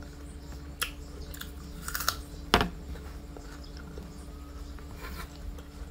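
Crisp apple being chewed close to the mouth: a run of sharp crunches, the loudest about two and a half seconds in, then a softer one near the end.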